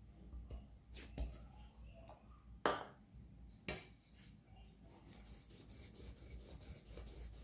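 Quiet handling sounds of dough being patted and shaped on a kitchen countertop, with a few sharp knocks, the loudest about two and a half seconds in and another about a second after it.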